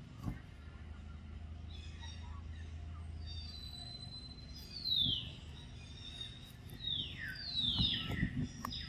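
A bird calling with clear whistles that slide down in pitch: one about five seconds in, then three or four in quick succession near the end. A few soft low knocks sound with the last calls.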